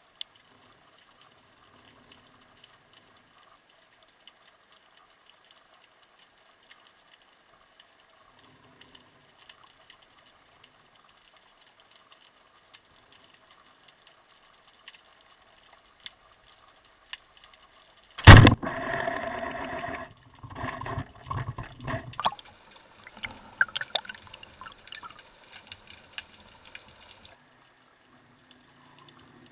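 Underwater ambience of faint scattered ticks, then a single sudden loud crack about two-thirds of the way through as the Rayo speargun fires. A few seconds of buzzing, ringing noise and irregular scraping follow.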